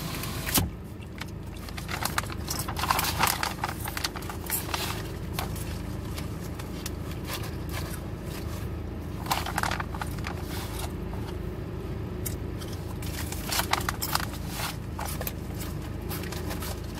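Sandwich packaging crinkling and rustling in irregular bursts as it is handled, over a steady low hum inside a car.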